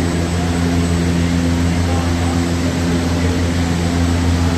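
Large wind-machine fans running steadily: an even rush of air over a low, constant hum.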